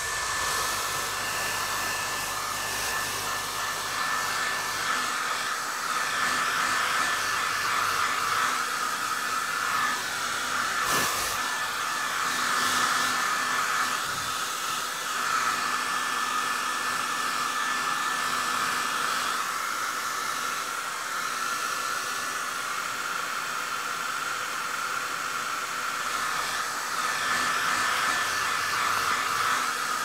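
Hair dryer running steadily: an even rush of blown air with a faint steady motor whine, used as white noise. One brief click about eleven seconds in.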